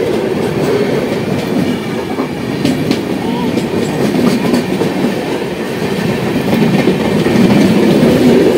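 New Delhi–Amritsar Shatabdi Express passing close alongside on the adjacent track, heard from a train's open doorway: a steady rumble and clatter of its LHB coaches' wheels over the rail joints, growing louder near the end as its power car goes by.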